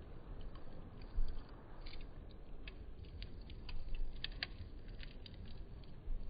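Campfire crackling: scattered sharp snaps and pops from the burning wood over a low steady rumble, with a flurry of pops around the middle.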